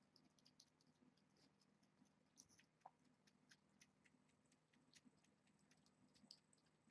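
Near silence: room tone with a low steady hum and faint, scattered small ticks and rustles.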